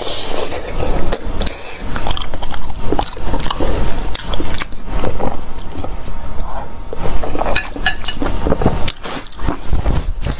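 Close-miked eating: a person biting and chewing food, a dense run of short, sharp clicks and smacks.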